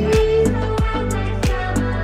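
Background music with a steady beat: regular low drum hits over a held bass line.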